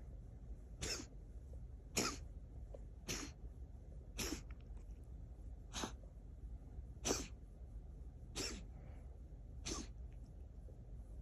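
A cat coughing to bring up a hairball: a run of eight short, sharp coughs, roughly one every second and a bit.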